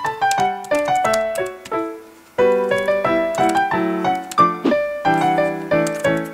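Background music: a piano-like keyboard tune of quick, evenly paced notes. It thins briefly about two seconds in, then comes back with fuller chords.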